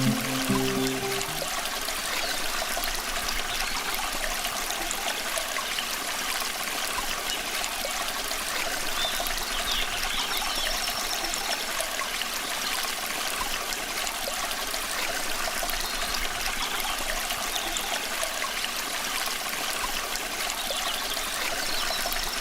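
Water trickling steadily, a small stream flowing, with the end of background music cutting out in the first second or so.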